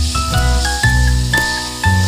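Background music: a melody of short high notes over low bass notes, with a steady beat of about two a second.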